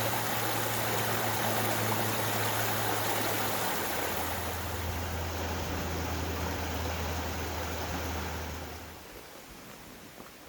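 Rushing water of a stream or small falls, an even hiss that fades away about nine seconds in. Under it runs a steady low hum that drops in pitch about four seconds in and stops with the water.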